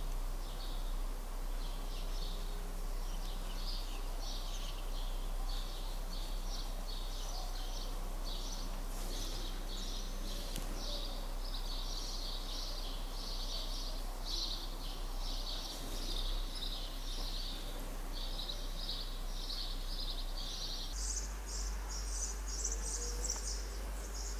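Continuous high-pitched animal chirping in rapid, uneven pulses over a low electrical hum; near the end the chirping moves higher in pitch.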